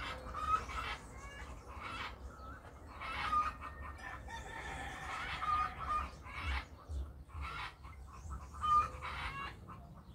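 Chickens clucking, with short calls recurring every second or two; the loudest come just after the start and near the end.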